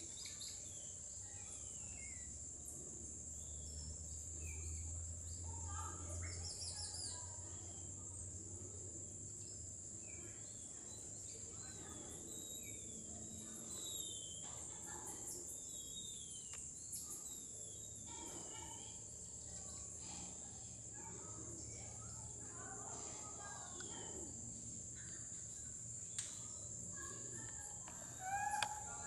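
Tropical forest ambience: a steady high insect drone with many short chirps and whistling calls scattered through it, and a louder brief call near the end.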